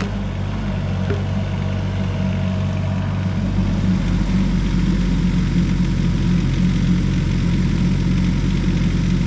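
Tracked stump grinder's engine running steadily.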